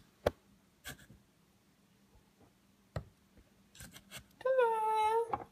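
Light clicks and taps of small plastic toy figures being handled and set down on a wooden sandbox edge. Near the end comes one high, held, voice-like tone lasting about a second.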